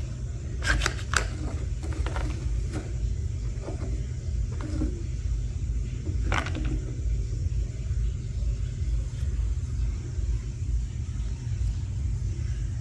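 A steady low rumble runs underneath a few sharp clicks and light taps of small plastic toy pieces being handled. The clicks cluster about a second in, and there is one more a little past the middle.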